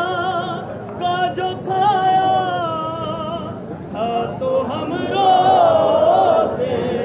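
A man singing a noha, a Shia mourning lament, in a wavering voice with long held notes and short breaks between phrases. The voice is loudest about five to six seconds in.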